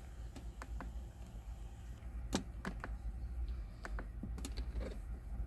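Buttons on a handheld automotive scan tool clicking irregularly, a dozen or so short clicks as it is stepped through its menus to read engine trouble codes, over a steady low hum.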